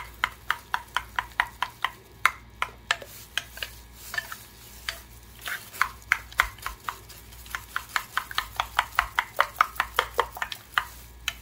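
A spoon beating yogurt-tahini sauce in a glass bowl, clicking against the glass in quick even strokes, about four to five a second, with a couple of brief pauses.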